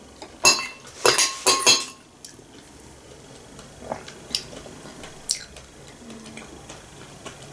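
Metal spoon clinking and scraping in a glass bowl while scooping fruit salad: a run of clinks in the first two seconds, then a few lighter ticks spread out after.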